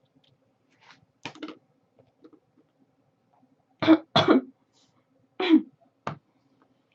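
A person coughing and clearing their throat: a handful of short, separate coughs, the loudest a quick pair about four seconds in.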